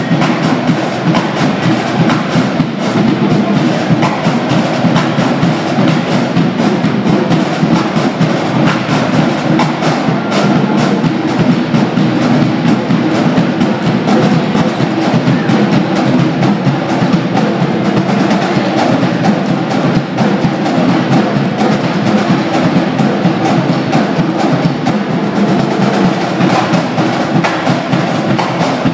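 School pep band drums playing a busy, steady rhythm with no break, loud throughout.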